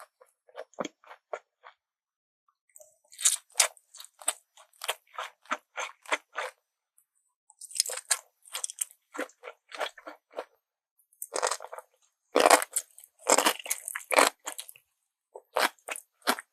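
Close-miked chewing of crunchy food: runs of rapid, crisp crunches in bursts of a few seconds, separated by short pauses.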